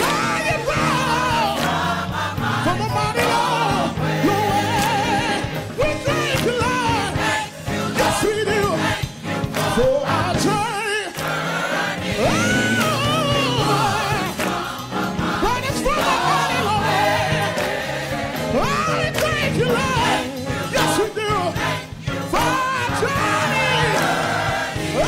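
Gospel choir singing with instrumental accompaniment over a steady beat.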